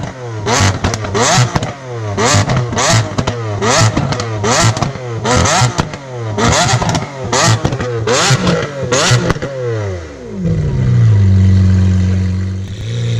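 Lamborghini Aventador SV's 6.5-litre V12 through an Armytrix aftermarket exhaust, revved in quick blips while the car stands still, with sharp crackles as each rev falls away. About ten seconds in the revs drop and the engine settles into a steady idle.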